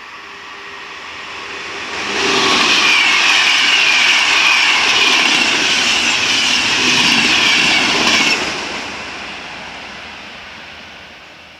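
Electric passenger train on the Adriatic main line passing close by at speed: a rising rush as it approaches, a loud rattle and hiss of wheels on rails for about six seconds while the coaches go by, then a sudden drop as the last coach passes and a fading rumble as it recedes.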